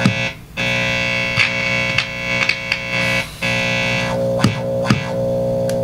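Loud steady electrical hum and buzz from a guitar amplifier with a vintage DeArmond 1802 Weeper wah pedal in its signal chain. It is broken by several crackles and two brief dropouts as the plugs in the pedal's jacks are handled. This is the pedal's noise fault: it is picking up noise.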